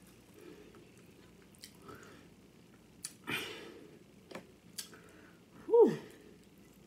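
Eating mouth sounds from a woman finishing nachos by hand: a few lip smacks and mouth clicks and a breath, then near the end a short, loud vocal sound that falls steeply in pitch.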